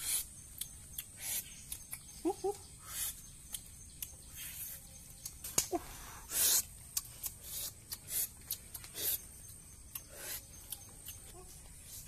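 Dry leaf litter and bamboo debris rustling and crackling in short, separate bursts as hands and feet move through it. A couple of short, pitched calls come about two seconds in, and one more near the middle.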